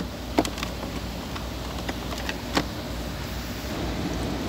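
Steady low hum inside a Renault Dokker's cabin, with two sharp plastic clicks, about half a second in and again after about two and a half seconds, as the wiring connectors behind the dashboard are handled.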